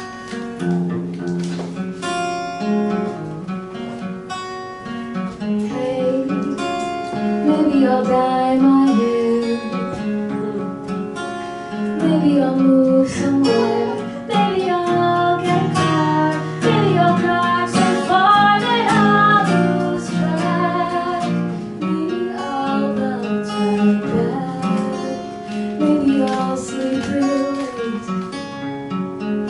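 Acoustic guitar playing a slow song accompaniment, with a solo singer's voice coming in a few seconds in.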